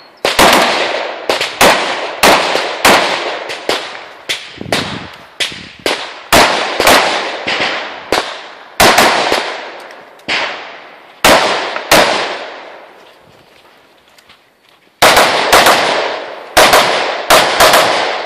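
Rifle shots fired in a rapid string, about two dozen, roughly two a second, each ringing off in a short echo. There is a pause of about three seconds partway through, then a quicker string of shots near the end.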